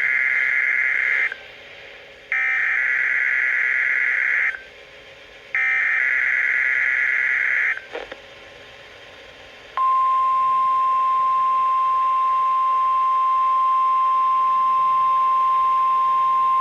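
NOAA Weather Radio alert signals: the end of one SAME digital header burst and two more harsh, buzzy data bursts, each about two seconds long and a second apart. Then, about ten seconds in, the steady single-pitch 1050 Hz warning alarm tone starts and holds. The data bursts encode the alert for receivers, and the tone sets off weather-radio receivers' alarms.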